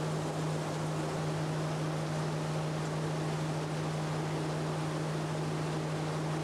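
Coffee dry-mill machinery running: a steady low hum over an even rushing noise, unbroken throughout.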